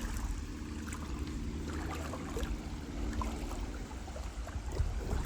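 Creek water running, under a low rumble, with scattered small clicks and knocks.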